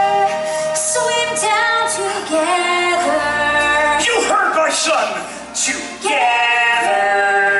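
Stage-musical singing: cast voices singing sustained, gliding notes over an orchestral backing track, with a busier, noisier passage about halfway through.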